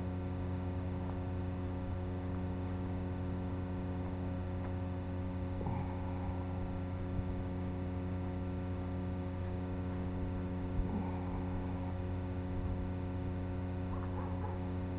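Steady electrical hum made of several evenly spaced tones, with a few faint brief higher sounds over it about six, eleven and fourteen seconds in.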